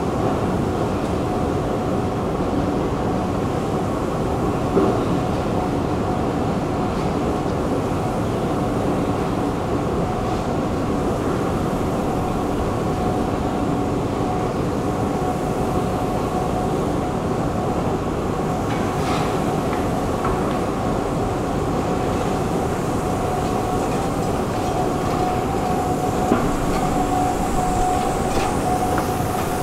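Stockholm metro train noise: a steady rumble with a constant humming tone, two brief knocks and a faint high rising whistle near the end.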